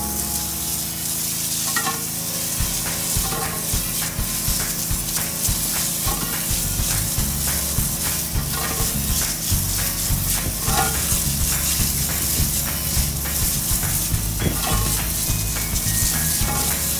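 High-pressure washer jet spraying into a sewage manhole, a steady hiss with splashing as the water breaks up and flushes the clog and washes the dirty manhole walls.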